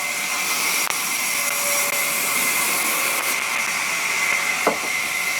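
Steady hissing, whooshing noise of sawmill machinery running, with a few faint clicks.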